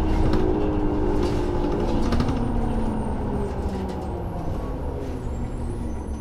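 2003 New Flyer D40LF city bus heard from on board, its Cummins ISL inline-six diesel and Allison automatic transmission running as the bus eases off and slows. A driveline whine falls slowly in pitch and the overall sound fades gradually, with a few light rattles in the first couple of seconds.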